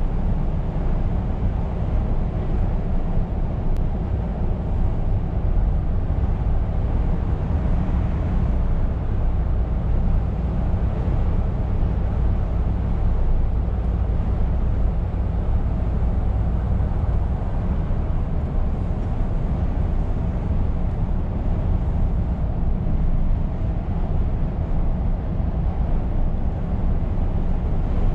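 A Scania R520 truck cruising at steady highway speed, heard from inside the cab: a constant low engine drone mixed with road and tyre noise, with no gear changes or sudden sounds.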